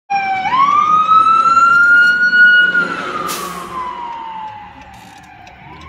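A loud siren wailing. Its pitch jumps up about half a second in and holds high, then slowly falls for about three seconds. A short hiss comes partway through.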